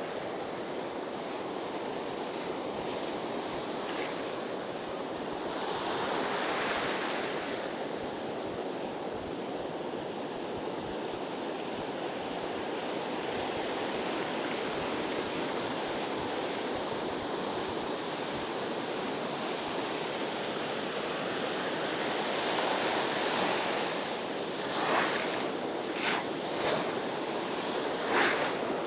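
Surf breaking and washing up a sandy beach in a steady rush, swelling louder twice as waves come in. Near the end come a few short sharp knocks.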